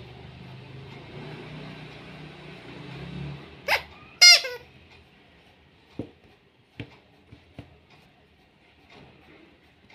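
Squeaker in a soft vinyl ice cream cone squeeze toy squeezed twice, giving two loud high squeaks about half a second apart, the second one longer. A few soft knocks follow as the toys are handled.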